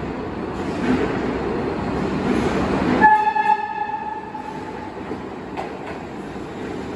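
New York City subway train rumbling in along the track, growing louder. About three seconds in comes a short blast on the train's horn, lasting about a second and a half, and then the train runs on past with a softer rumble.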